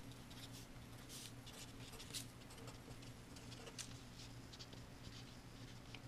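Black marker writing on paper: faint, short scratchy strokes as letters are written, over a steady low hum.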